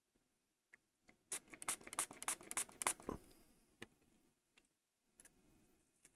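Small clicks and scratches of a circuit board and tools being handled on a workbench: a quick clattering run of sharp clicks lasting about two seconds, then a few single ticks and a soft scrape.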